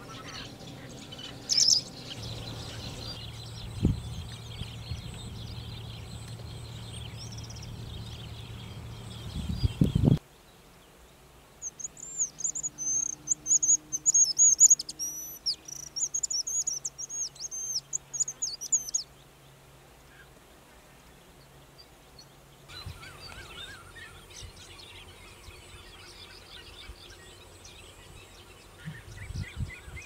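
Indochinese bushlark singing, a series of short, high, quickly repeated phrases lasting about seven seconds in the middle. Before and after it, fainter bird calls over steady background noise.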